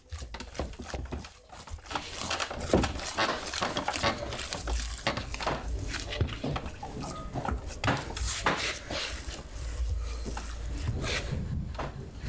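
Irregular knocks, taps and scraping of hand tools working wood, over a low rumble.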